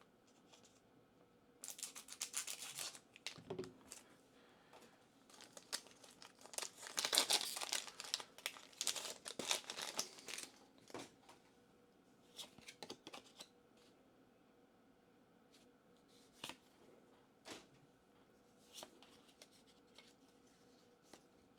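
A foil Pokémon booster pack being torn open and its wrapper crinkled, in a short burst about two seconds in and a longer one from about six to ten seconds in. After that come only scattered soft clicks and flicks as the cards are handled.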